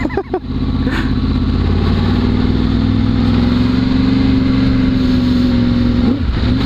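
2011 Yamaha R1's crossplane inline-four engine through a K-Factory titanium race exhaust, pulling in gear with its pitch slowly rising as the bike gathers speed, with a brief break about six seconds in.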